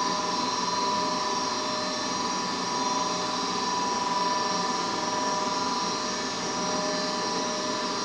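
Goodman furnace's draft inducer motor running, a steady whine with no change in speed.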